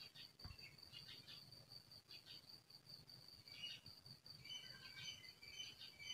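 Faint outdoor insect chorus: a steady, evenly pulsing high trill, like crickets, with short bird chirps joining in the second half. There is a faint low bump about half a second in.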